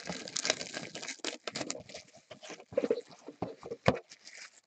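Hands handling a cardboard trading-card box, sliding and gripping it: a dense run of scraping, crackling handling noise with a few sharper clicks around three to four seconds in.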